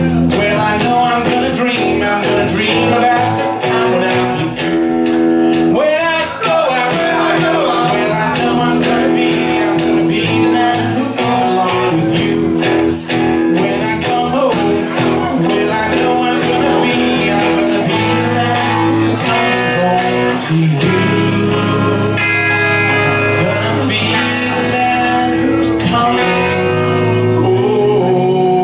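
Live rock covers band playing through a PA: sung vocals over electric bass, guitar and drums. The drum hits thin out about two-thirds of the way through, leaving held notes and voices.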